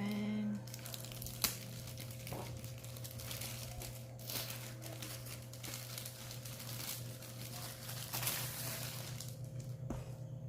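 Plastic packaging crinkling and rustling as it is handled and unwrapped, irregular throughout, with a sharp tap about a second and a half in.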